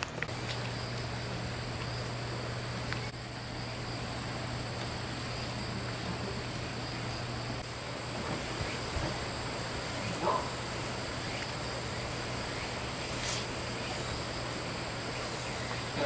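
Insects trilling steadily in high, unchanging tones over a soft, even hiss of rain, with a few faint small knocks.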